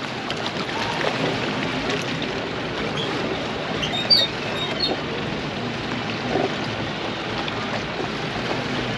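Steady rush of water and wind on a boat at sea, with one short knock about four seconds in.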